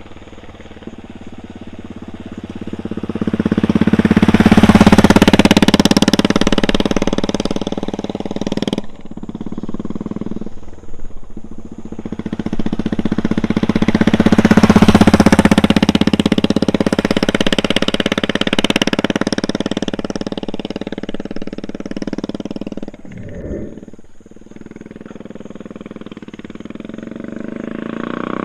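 Royal Enfield Classic 350 BS6 single-cylinder motorcycle with an aftermarket free-flow double-barrel exhaust riding past at speed twice. Each pass builds to a loud peak and fades away, and another pass begins near the end.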